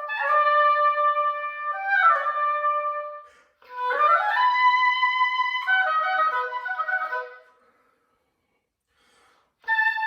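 Solo oboe playing: held notes, then a quick upward run into a long sustained note, then a string of shorter quick notes. A pause of about two seconds follows, and the playing resumes near the end.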